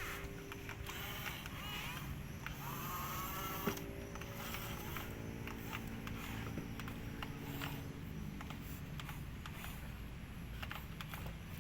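Heavy diesel engine of construction machinery running steadily, with a brief rising whine about three seconds in and a few faint clicks.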